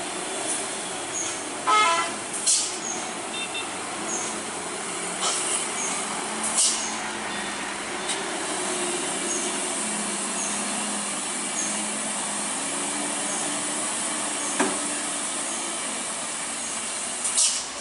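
Hino 500 tanker truck's diesel engine running as the truck crawls around a tight hairpin bend, with a short horn toot about two seconds in. Several short, sharp hisses of air, typical of air brakes, cut through the engine sound.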